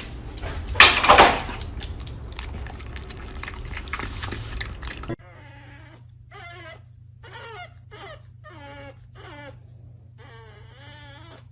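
A dog whining and whimpering in a series of short cries that bend up and down in pitch, over a steady low hum. It is preceded by about five seconds of loud, noisy clatter with one loud falling cry about a second in, which cuts off suddenly.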